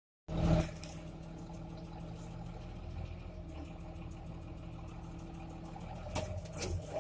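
A vehicle engine running steadily at idle, with two sharp clicks near the end.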